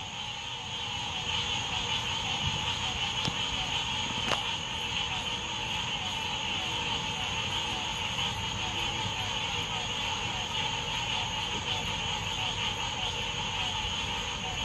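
Steady night-time insect chorus, a continuous high shrill with a low rumble underneath. Two faint sharp pops come about three and four seconds in.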